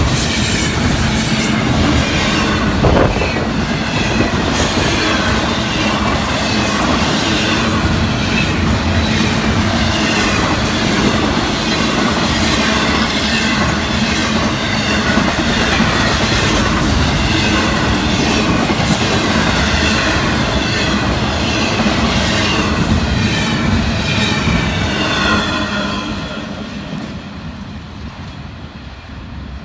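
Florida East Coast Railway intermodal freight train rolling past, a steady loud noise of wheels on rail. It dies away about 26 seconds in as the end of the train goes by.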